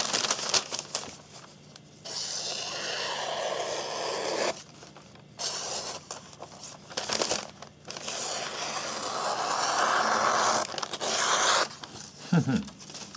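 A sharpened knife blade drawn through a material in a few long slicing strokes, each a scraping, tearing sound of two or three seconds with short pauses between.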